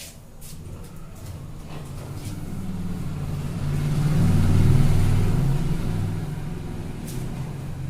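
A motor vehicle's engine passing by, swelling to a peak about halfway through and then fading away.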